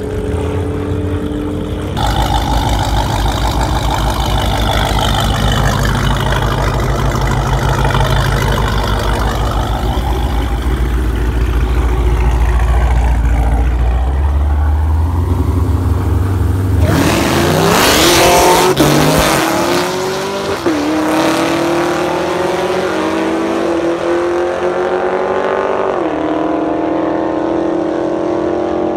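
Drag-racing car engines: a heavy engine idling close by, then a loud launch about two-thirds of the way through, with the car accelerating away down the strip, its pitch climbing and dropping back at three gear changes.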